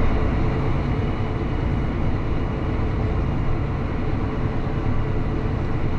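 Heavy farm machinery running steadily: a constant low engine hum with a broad mechanical noise over it, unchanging throughout.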